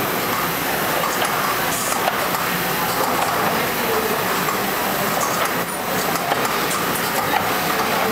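Automated assembly line running: a steady mechanical din with air hiss and a few short clicks from its conveyor and pneumatic stations.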